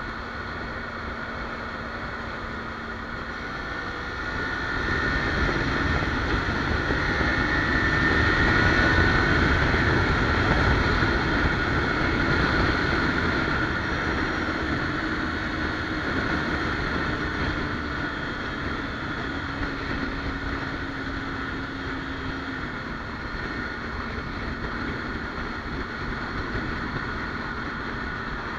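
Kawasaki Ninja 300's parallel-twin engine under way with wind rushing over the camera microphone. It grows louder about four seconds in as the bike accelerates to around 125 km/h, then eases off slowly.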